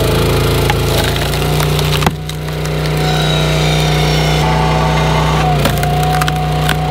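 Gas-engine hydraulic log splitter running steadily while its wedge forces through a large oak round; the wood splits and splinters, with a sharp crack about two seconds in and a run of crackles near the end.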